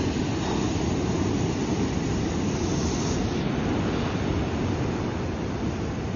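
Ocean waves breaking and washing onto the shore, a steady rush of surf with a brighter hiss of white water about halfway through.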